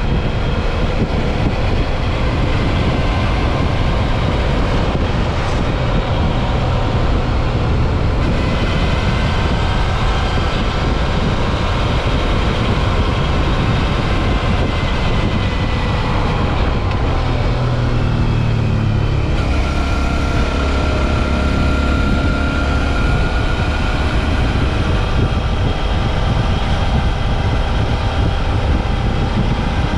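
Suzuki V-Strom 650 XT's V-twin engine running under way, over heavy wind and road noise on the microphone. The engine note changes about two-thirds of the way through, then holds steady again.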